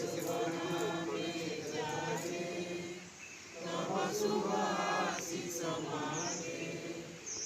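A group of voices singing or chanting together in phrases, with a short break about three seconds in.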